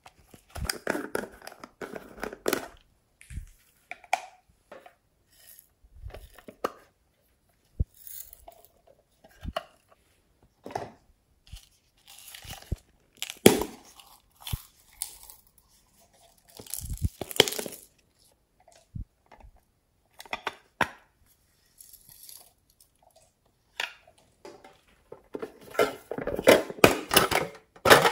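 Hands opening and handling small plastic toy containers and a metal tin: scattered clicks, taps and rustling with short quiet gaps, busier and louder near the end.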